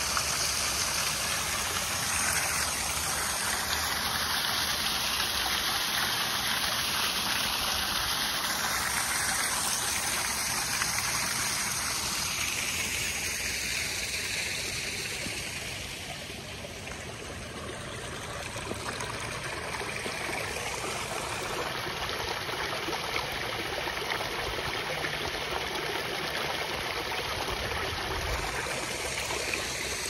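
Spring water falling from a rock ledge and splashing into a shallow pool, a steady trickling and splashing. It grows a little quieter for a couple of seconds about halfway through, then returns to its earlier level.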